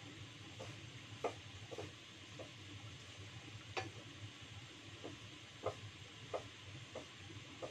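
A cooking utensil stirring food in a hot pan: irregular clinks and scrapes against the pan about once or twice a second, over a faint steady sizzle.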